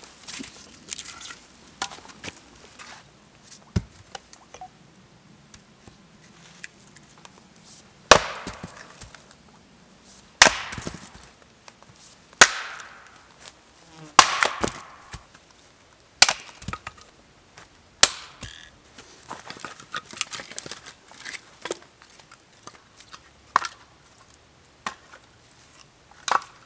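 Axe chopping firewood on a chopping block: six sharp, loud strikes about two seconds apart in the middle stretch, with lighter wooden knocks and clatter before and after.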